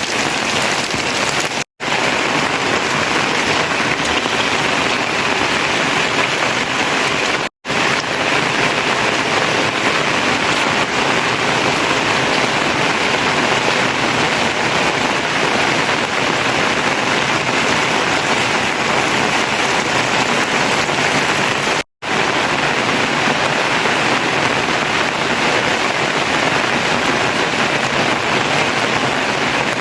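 Rain falling steadily, a loud even hiss of rain on surfaces, cut off for an instant three times.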